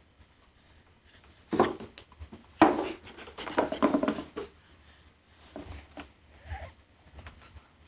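Knocks and scraping as a baby handles a small leather baby shoe on a hardwood floor: a sharp knock about a second and a half in, a louder one a second later, then rubbing and scraping, with a few lighter taps near the end.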